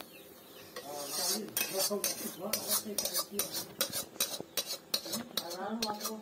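Metal spatula scraping and clinking against a metal kadai and a steel plate as cooked curry is scraped out onto the plate: a rapid, uneven run of scrapes and knocks that starts just under a second in.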